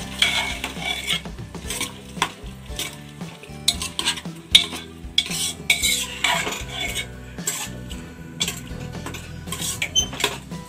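Metal spoon stirring rice into chicken masala in a pressure cooker pot, with irregular scrapes and clacks of the spoon against the pot.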